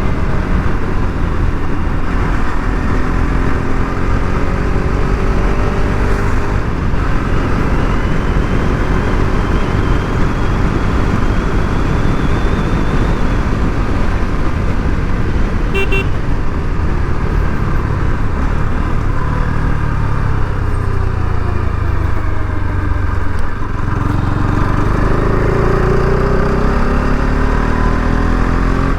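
Bajaj Pulsar RS 200's single-cylinder engine running on the move under heavy wind and road noise, its pitch falling and rising with throttle and gear changes, dipping around twenty seconds in and climbing again near the end. A short horn beep about sixteen seconds in.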